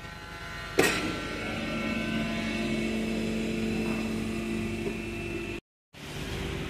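Electric hydraulic pump of a two-post car lift switching on with a sharp click about a second in, then running with a steady hum, as the car is raised.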